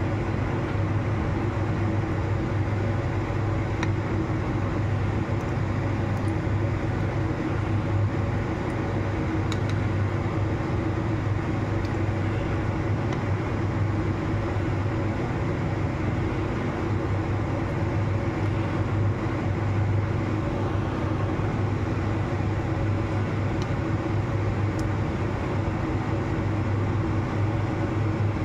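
Steady low mechanical hum with a hiss over it, unchanging throughout.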